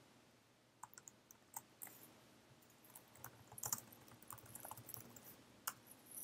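Faint computer keyboard keystrokes: an irregular run of key clicks typing a command, starting about a second in.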